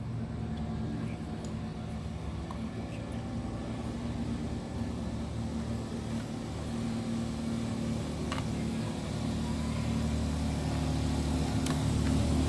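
A motor vehicle engine running with a steady low hum, growing louder toward the end.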